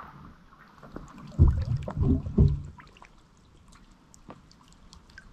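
Oars working an inflatable raft on a river: a few heavy low knocks and splashes of the strokes in the first half, then quieter water with small scattered ticks.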